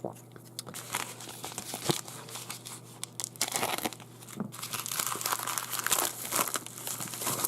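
Packaging of a small, thin parcel being torn open and crinkled by hand, in an irregular run of rustles and crackles.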